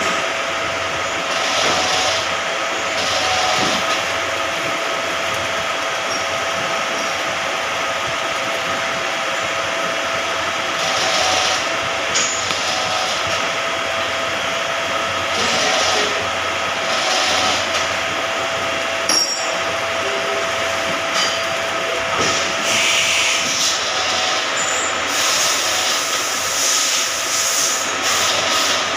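CNC lathe running a straight-turning pass: the spindle turns the bar while the turret-mounted tool cuts along it. A steady machine hum with two whining tones, with short bursts of higher hiss coming and going every few seconds.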